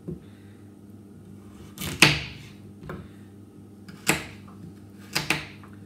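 Kitchen knife chopping vegetables into chunks on a chopping board: a few sharp, irregularly spaced chops, the first one about two seconds in the loudest.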